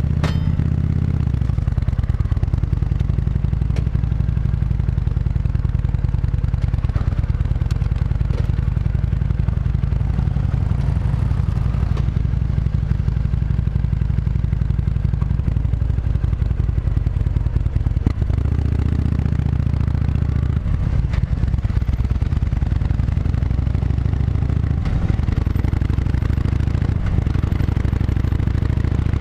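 Motorcycle engine running steadily as the bike is ridden, its note shifting a little about two-thirds of the way through.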